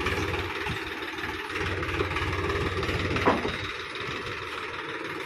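Diesel farm tractor engine running steadily at low revs while pulling a trailer loaded with crushed stone, with a brief higher-pitched sound about three seconds in.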